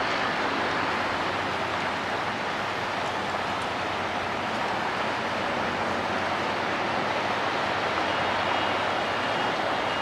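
Steady city ambience by a river: an even rush of distant road traffic with no distinct events.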